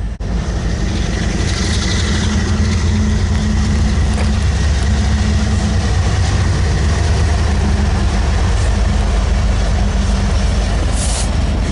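Norfolk Southern diesel freight locomotives passing close by, their engines making a steady, heavy low drone. A brief high hiss comes near the end.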